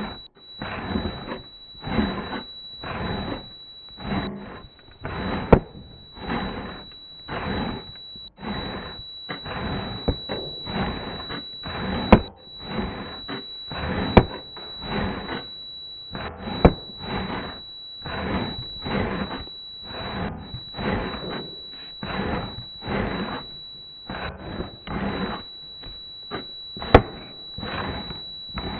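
Broken-TV static noise: crackling hiss that surges and drops in uneven pulses about once or twice a second, over a steady high-pitched whine, with a few sharp clicks.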